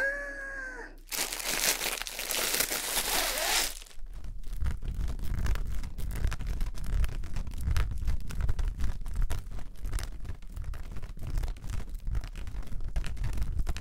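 Plastic packaging pulled open with a dense crinkling rush lasting a few seconds, followed by a white fabric hanging bag organizer being unfolded and handled close to the microphone: many small crinkles and rustles over a low rumble of handling.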